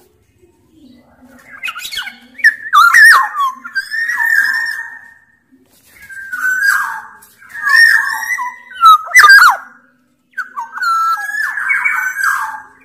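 Black-naped oriole (kepodang, Sumbawa form) singing: several bouts of fluty whistled notes mixed with harsher, rasping calls, with short pauses between the bouts.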